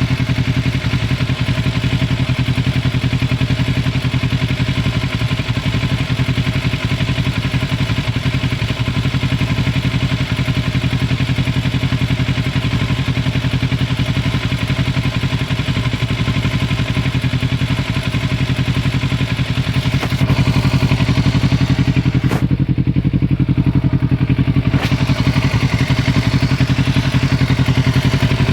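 2006 Kawasaki Ninja 650R's parallel-twin engine idling steadily with a rapid ticking. The owner is unsure whether the tick is normal or a fault. The engine gets slightly louder about twenty seconds in.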